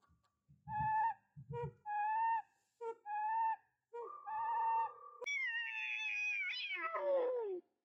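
A cat meowing repeatedly in short high calls, then one long call that falls in pitch near the end.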